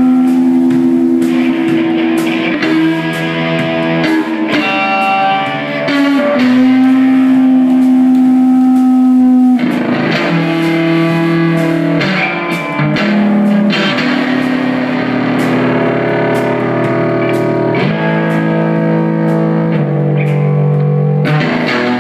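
Live rock band playing: distorted electric guitars and bass holding chords that change every couple of seconds, over drums with cymbal strikes.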